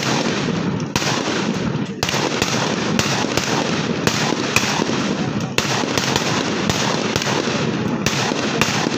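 Massed small-arms fire on a training range: gunshots from many weapons crackling and overlapping almost without pause, with sharper single reports standing out about once a second.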